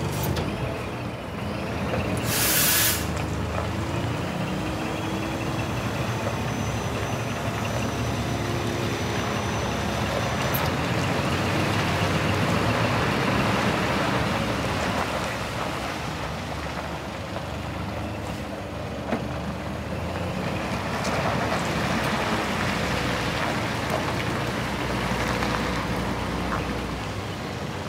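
Scania R480 hooklift truck's straight-six diesel engine running steadily as the truck moves slowly, with a short sharp air-brake hiss about two to three seconds in.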